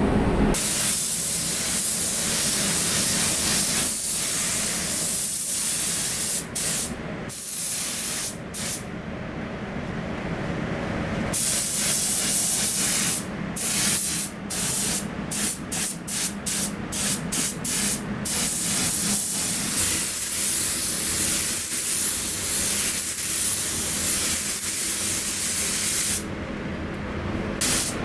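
Compressed air hissing from a body-shop air gun, held on for long stretches and switched on and off in many short trigger bursts for a few seconds in the middle.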